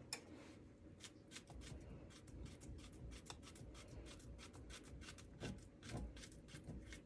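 A utensil scraping around the bottom of a saucepan of thickening homemade vanilla custard, stirred steadily so it won't scorch. It is a faint, quick, irregular run of light scrapes.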